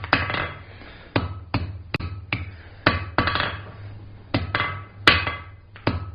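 Flat-faced hand hammer striking hot steel bar on the anvil, about a dozen irregular planishing blows, some in quick pairs, to straighten and smooth the forged ball end, with a short metallic ring after the harder hits. A steady low hum runs underneath.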